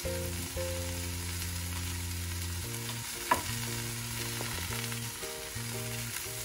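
Dried shrimp, shallots and dried red chillies sizzling in coconut oil in a non-stick frying pan as grated coconut is spooned in, with one sharp tap of the spoon about three seconds in. Steady low background tones that change every second or so run underneath.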